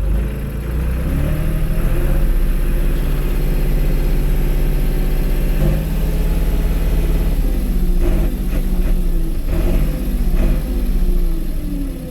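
Valmet tractor's diesel engine running under load as it drives in reverse, revs rising about a second in and shifting in pitch several times before dropping back near the end.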